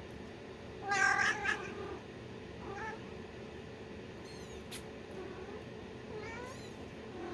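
Kittens mewing: one loud, high-pitched mew about a second in, then shorter, fainter mews near 3 s and 6 s. A single sharp click comes in the middle.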